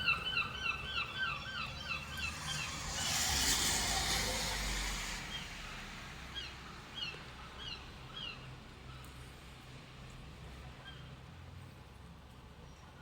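Seagull calling in a rapid run of short, harsh notes that stops about two seconds in. A rush of noise follows for a few seconds, then a handful of fainter, spaced calls.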